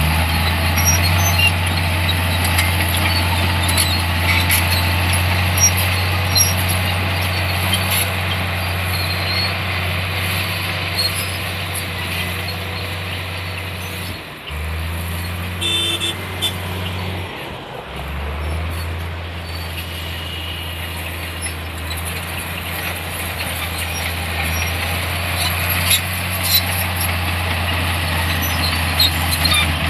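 Diesel engine of a heavy earthmoving machine working, a steady low drone with engine noise on top. The sound changes abruptly about halfway through and again a few seconds later, with a short higher tone between.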